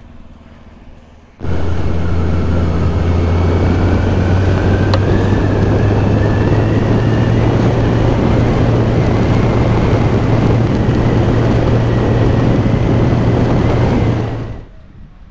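Kawasaki Z1000SX inline-four motorcycle underway, its engine humming steadily under heavy wind rush on the helmet camera, the pitch creeping slowly upward. It starts suddenly about a second and a half in and fades out shortly before the end.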